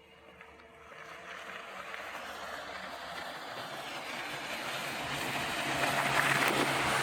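BAIC BJ40 4x4 driving off-road: a steady engine hum under a rushing noise that grows steadily louder.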